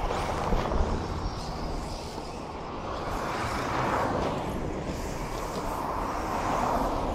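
Radio-controlled race trucks running on a dirt track. Their motor and tyre noise swells and fades as they pass, loudest about four seconds in and again near the end.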